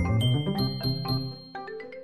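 Bright chime sound effect, entering with a sudden hit and ringing for about a second and a half, over light marimba-style background music.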